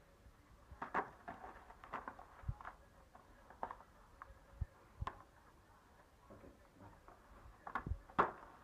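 A cardboard tube tapping and scraping against cardboard and carpet while a cat swats at it with its paws: scattered, irregular light knocks and scuffs, the sharpest pair near the end.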